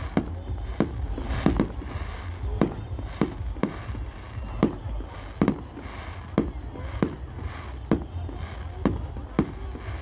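Fireworks display: aerial shells bursting in a steady run of sharp bangs, roughly one or two a second, over a low rumble.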